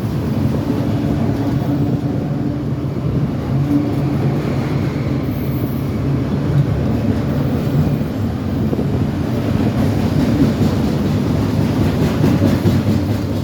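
Train passing, a steady low rumble with a few steady low tones.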